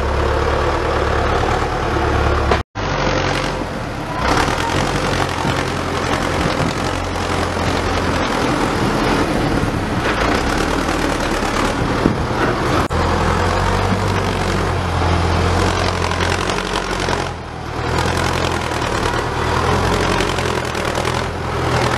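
Farm tractor engine running steadily while the tractor pushes soil with a front dozer blade. The sound drops out for an instant about three seconds in.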